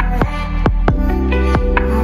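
Background music: electronic track with sustained synth notes over a steady beat.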